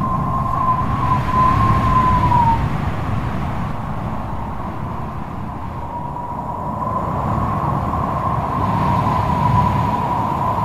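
A low vehicle rumble with a steady, siren-like high tone held twice: it sounds at the start, sags in pitch and stops after about two and a half seconds, then comes back about six seconds in and holds until near the end.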